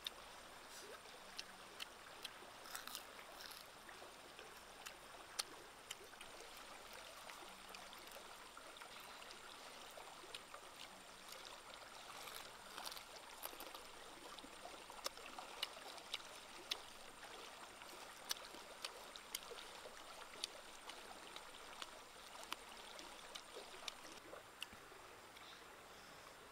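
Faint steady rush of a flowing stream, with scattered sharp little clicks over it.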